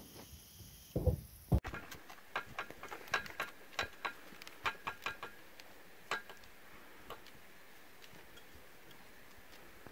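Two low thumps, then a run of irregular light clicks, about a dozen over five seconds, thinning out and stopping.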